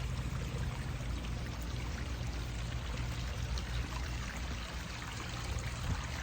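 Water from a pondless backyard waterfall spilling over rocks and running down its eight-foot stream, a steady even splashing rush.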